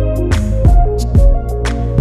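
Instrumental background music with a steady drum beat under sustained melodic notes.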